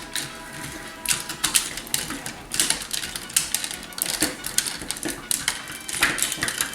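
Hard plastic parts of a vintage G1 Transformers Jetfire toy clicking and clattering as they are handled, folded and fitted together: a string of irregular sharp clicks.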